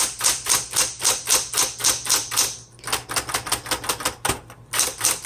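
Smith-Corona Coronet Automatic electric typewriter typing, key strikes in a fast, even run of about five a second, broken by two short pauses.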